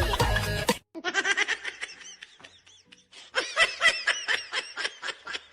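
Background music that cuts off just under a second in, followed by a person laughing in quick, breathy bursts, loudest about two-thirds of the way through.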